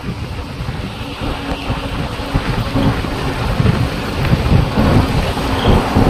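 Wind buffeting the microphone: a gusty, rushing rumble that grows louder about a second in and stays loud.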